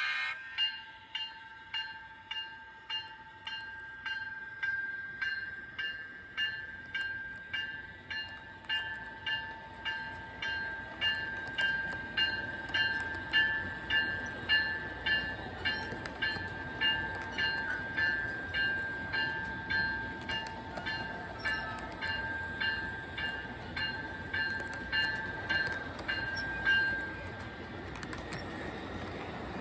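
Sound system of an MTH Premier NJ Transit AEM-7 model electric locomotive ringing its bell, about one strike a second, over a steady electric whine and the model running on the track. The bell stops near the end. The sound comes through the locomotive's speaker, which is working again after the repair.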